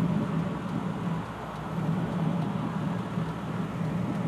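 A 1956 Ford pickup's engine idling steadily while the truck waits at a stop, heard from inside the cab, a steady low hum.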